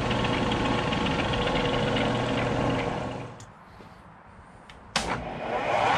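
Series 1 Bridgeport milling head's motor and variable-speed belt drive running steadily with a hum and a whine, its fasteners still being tightened as it settles in. The sound drops away a little past three seconds in; about five seconds in there is a sharp click and the running sound comes back.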